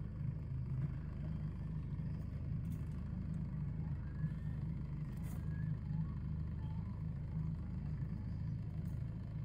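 Boat engine idling steadily, a low even hum, with a few faint clicks from the crab trap being handled.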